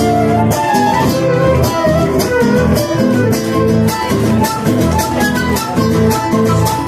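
Live Argentine folk music: acoustic guitars strummed in a steady rhythm, with a melody of held notes above.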